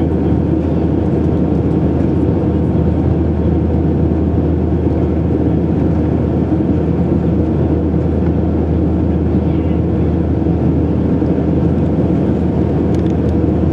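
Steady cabin noise inside an Airbus A321 in flight, heard from a window seat over the wing: an even, low engine drone mixed with the rush of airflow.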